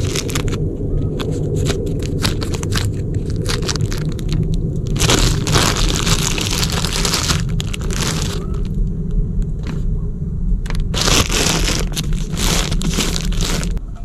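Thin plastic bread bag crinkling and crackling as it is opened and handled and bread is pulled out, in bursts of rustling that are heaviest about five seconds in and again near the end. A steady low rumble runs underneath.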